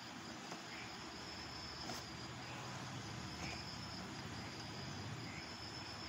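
Steady, high-pitched insect trill, of the kind crickets make, running without a break over low background hiss.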